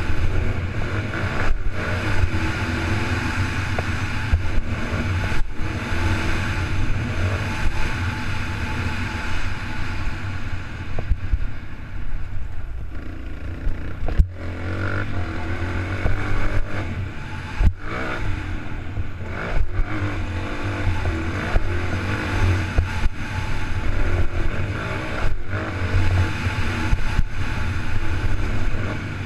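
Motocross dirt bike engine running hard under changing throttle, heard from an onboard action camera with heavy wind noise over the microphone. The engine note drops out sharply for a moment every few seconds, as the throttle is chopped.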